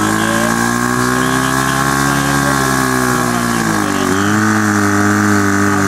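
Portable fire pump's engine running at high revs. About four seconds in the note drops and then settles into a steady run.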